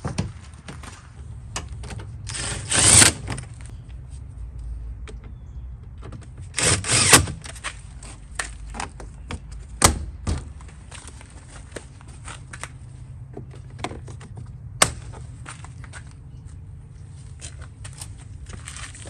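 Plastic interior door panel of a 2003 Ford F250 being pressed onto the door: irregular clicks and knocks as the trim clips snap into their slots. Two longer scraping rustles come early on, and sharp single snaps come about ten and fifteen seconds in.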